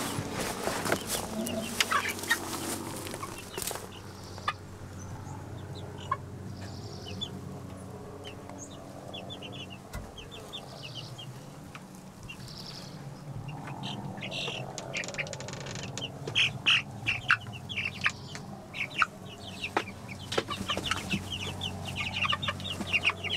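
A flock of broiler chickens clucking in their coop, the calls growing busier in the last third. A few knocks come in the first few seconds.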